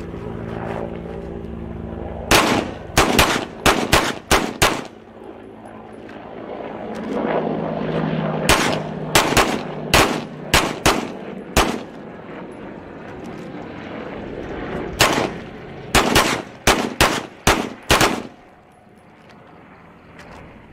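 Two handguns firing three quick strings of about seven or eight shots each, the two shooters' shots overlapping, with a few seconds of pause between strings. Each string fits one repetition of the dot-torture drill: a draw, two shots on one dot, then a transition and two on the next. A low steady hum runs under the first couple of seconds.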